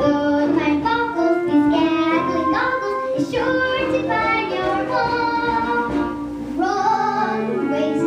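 Children singing a musical-theatre number with instrumental accompaniment.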